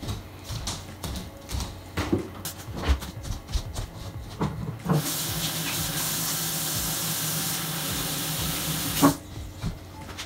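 Kitchen sink faucet running for about four seconds, water hissing into the sink as hands are rinsed after handling raw eggs, then shut off with a sharp knock. Before it come light clinks and knocks of handling bowls and shells.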